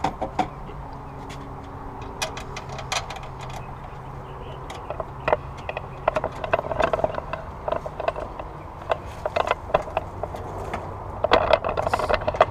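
Irregular clicks and clinks of hand tools and plastic and metal intake parts being handled while an air intake is fitted back on, busiest near the end. A steady low hum runs underneath for about the first half.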